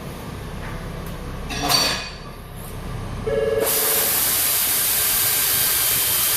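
A metal clink, then a compressed-air blow gun hissing loudly and steadily from a little past halfway, blowing dirt out of the spark plug wells.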